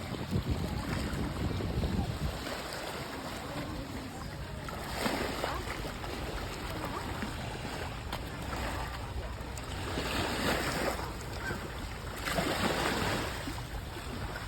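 Sea water washing and breaking in repeated swells, with wind rumbling on the microphone.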